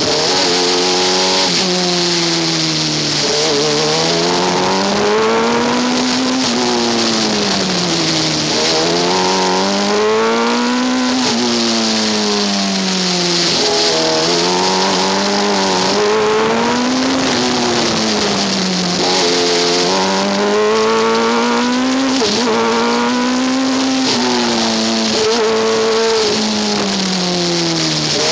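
Engine of a Formula Student race car heard onboard, its pitch rising and falling over and over, every couple of seconds, as the car accelerates and lifts through a run of corners. A steady hiss runs over it.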